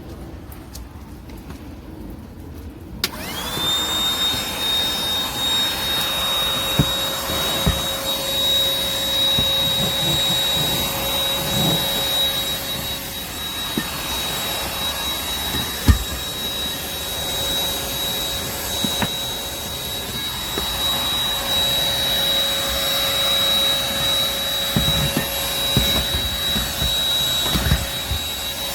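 MORCLIN 120W cordless handheld vacuum switched on about three seconds in, its motor spinning up within a moment to a steady high whine with a rushing hiss of air, running on with a few sharp knocks.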